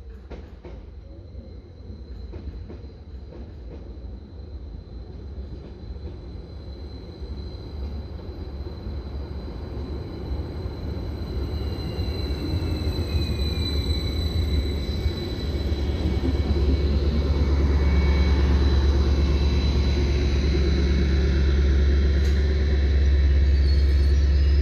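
A Greater Anglia Class 755 passenger train pulls into the platform. Its low running rumble grows steadily louder as it comes close, with a whine that falls in pitch as it slows, about halfway through.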